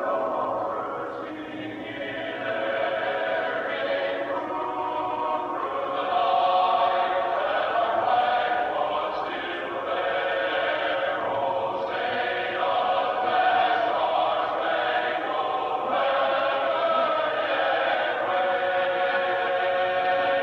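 A choir singing a national anthem in long held chords.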